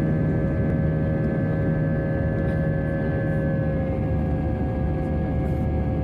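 Jet airliner cabin noise in flight: a steady roar with the hum of the underwing turbofan engines. The engine tones drop slightly about four seconds in.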